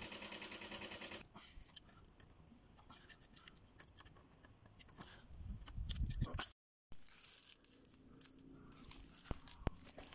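A freshly rebuilt Honda Super Cub single-cylinder four-stroke engine idling with an even, fast beat; it stops abruptly about a second in. Then come light clicks and scrapes of a spanner working on the engine, with a short low rumble just past the middle.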